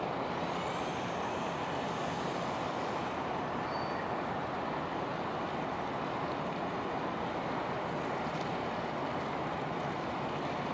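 Steady, even rumble of outdoor background noise, with a brief faint high tone about four seconds in.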